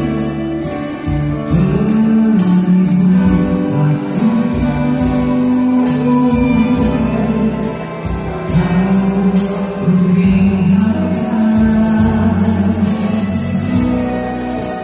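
Live band playing a song: acoustic and electric guitars and keyboard over a steady high percussion beat, with a voice carrying the melody.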